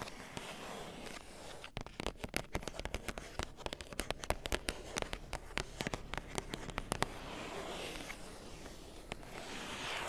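Long fingernails scratching on chocolate bar packaging, then quick sharp tapping on it, several taps a second, from about two to seven seconds in, then scratching again.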